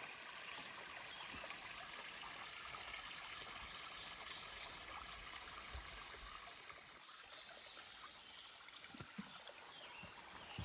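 Small forest waterfall, water running in a steady, even rush, fairly faint.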